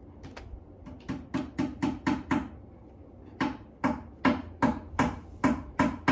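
Hammer tapping a piece of hardware into a particleboard flat-pack desk panel: a few light taps, then a string of sharp knocks at about four a second. After a short pause the strikes go on harder.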